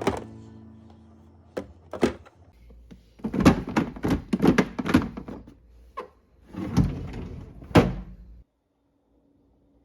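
Food containers knocking and clunking as they are handled and set down in a freezer: a quick run of knocks, ending with a sharp thud.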